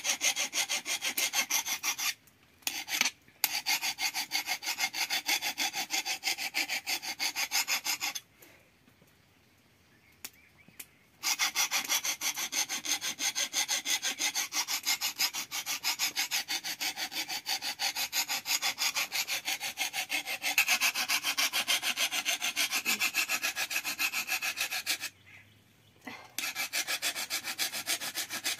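Sickle blade being sharpened by hand, a flat sharpening tool scraped quickly back and forth along the steel edge in a steady rasping rhythm. The strokes stop briefly about two seconds in, pause for about three seconds near the middle, and stop briefly again near the end.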